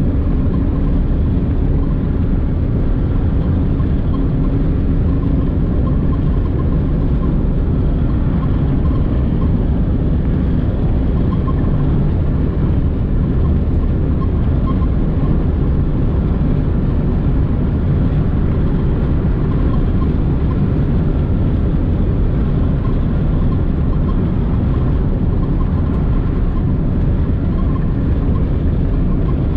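Steady engine and road noise of a Nissan being driven, with a faint humming tone over it for the first few seconds.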